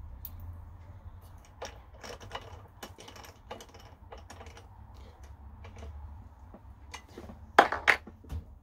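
Scattered light metallic clicks and taps as a drill bit is handled and fitted into the mini mill's drill chuck, ending in two sharp knocks in quick succession near the end, over a low steady hum.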